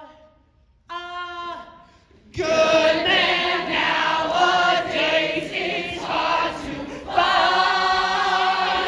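Musical-theatre cast singing: a single voice holds a short note, then the whole ensemble comes in loudly about two seconds in, ending on a long held chord near the end.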